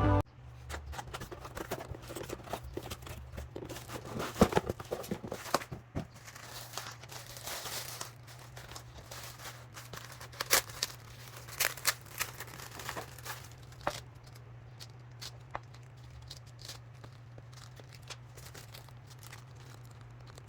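Objects being handled: irregular crinkling and rustling with scattered sharp clicks and knocks, busiest in the first half and thinning out later. A steady low hum runs underneath.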